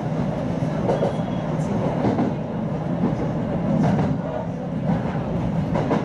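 Electric commuter train heard from inside the carriage while running: a steady running rumble with a few short clicks of the wheels passing over rail joints.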